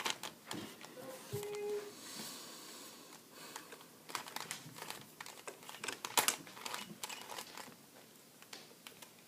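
Plastic Rubik's cube being turned by hand: irregular clicks and rattles of the layers snapping round, with some rustling.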